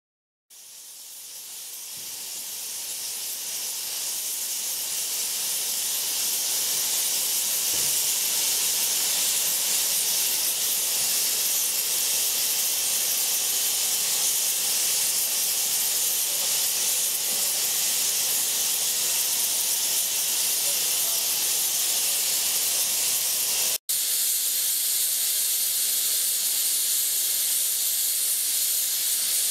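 Steam locomotive SŽ 06-018, a 1930 Borsig class 06, releasing steam low at its front end: a loud, steady hiss. It swells over the first several seconds and breaks off for a moment about 24 seconds in.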